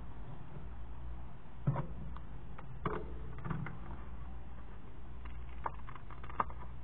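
Scattered light taps and clicks of paper and craft supplies being handled on a tabletop while a paper piece is glued down. A steady low hum sits underneath.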